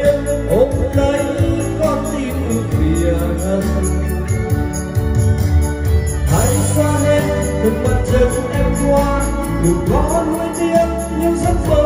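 Karaoke backing track with jingling percussion played loud through a trolley-speaker karaoke system with subwoofer and top speakers, and a man singing into a handheld microphone over it.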